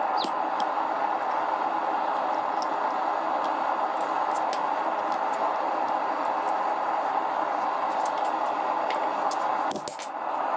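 Gas forge burner running with a steady, even roar.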